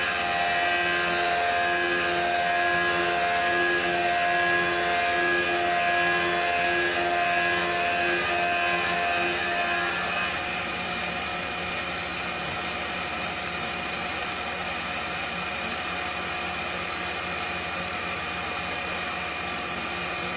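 Tormach PCNC 1100 CNC mill's spindle whining steadily while a small end mill cuts the heads of knife pivots under flood coolant. Through the first half a lower tone pulses a little over once a second with the cutter's passes, then stops about halfway through.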